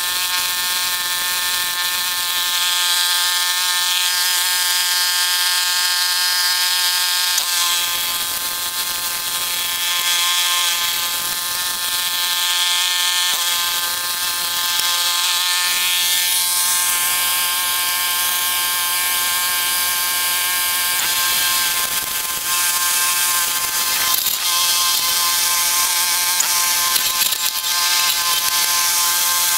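Walk-behind brush hog running steadily, its small gasoline engine and spinning blade making an even, unbroken drone as it is pushed through grass.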